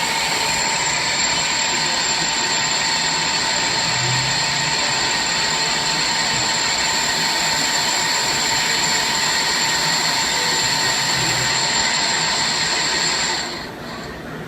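Thread whirling attachment on a Swiss-type CNC lathe running as it cuts a bone-screw thread: a steady high whine over a hiss, which stops near the end.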